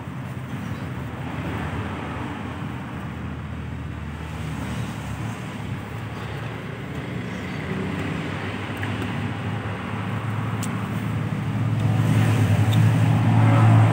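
Road traffic going by, a steady rumble with one vehicle's engine growing louder toward the end. A few faint clicks are heard now and then.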